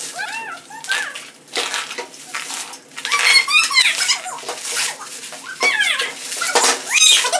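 Bubble wrap crinkling and rustling as a wrapped glass is pulled and unwrapped by hand, with short high squeaks over it several times.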